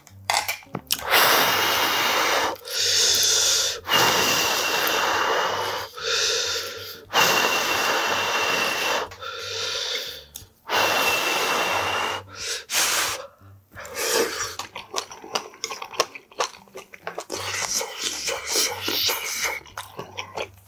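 A person slurping ramen noodles: about five long, loud slurps of a second or two each. From about two-thirds of the way in they give way to quick, wet chewing and smacking.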